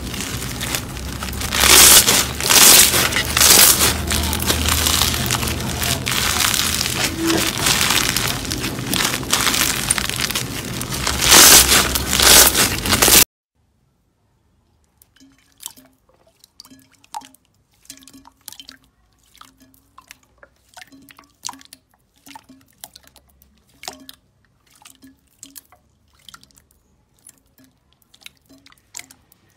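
Pink floam slime packed with foam beads being stretched and squeezed by hand, giving dense, loud crackling and popping that cuts off suddenly about 13 seconds in. After a short silence, hands work purple gel slime in a bowl of liquid, making quieter, sparse wet drips, squelches and clicks.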